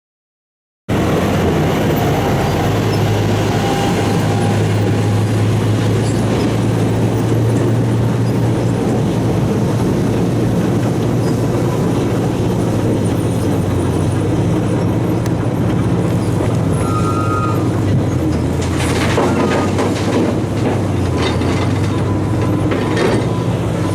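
Heavy diesel engines of an excavator and a dump truck running at work, a steady low drone that starts about a second in. About three quarters through come a few clanks and rattles of metal or stone.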